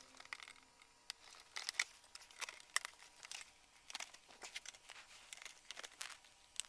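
Faint scattered rustling and light plastic clicks of car parts being handled and shifted by hand.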